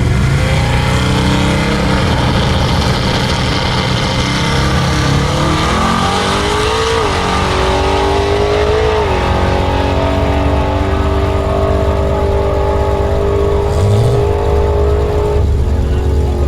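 A car engine accelerating hard through the gears in a drag-strip pass. Its pitch climbs and drops at two upshifts, about seven and nine seconds in, then holds nearly steady over heavy road and wind rumble.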